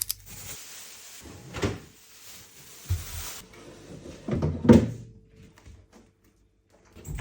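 Cupboard doors and drawers being opened and shut: a few separate knocks and thuds, the loudest cluster a little before the five-second mark. The sound drops out to dead silence for about a second near the end.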